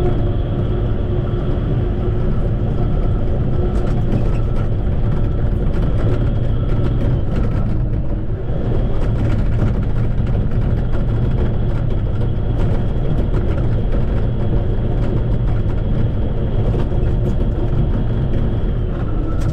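Shantui bulldozer's diesel engine running steadily under load, with a steady high whine over it that breaks off briefly about eight seconds in.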